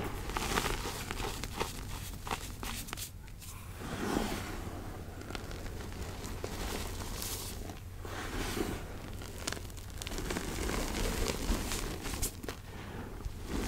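Hands squeezing and pushing through crumbled gray gym chalk mixed with charcoal: a crumbly crunch and hiss of grains and powder shifting. It comes in passes, with brief quieter dips about three seconds in and again near eight seconds.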